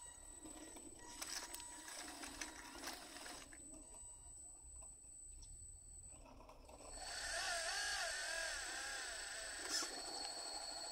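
Small electric drive motors and hydraulic pump of a 1:12-scale full-metal RC tracked hydraulic dump truck running as it crawls and lowers its tipper bed. There are scattered clicks in the first few seconds, then about seven seconds in a louder whine starts whose pitch wavers up and down.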